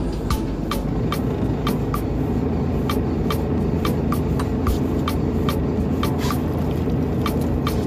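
Boat engine running steadily, a low rumble, with sharp ticks repeating about two or three times a second over it.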